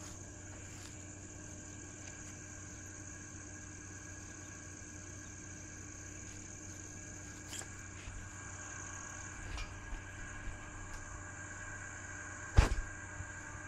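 Steady outdoor insect chorus, a constant high chirring, with a low hum beneath. A few faint clicks, then one sharp thump near the end.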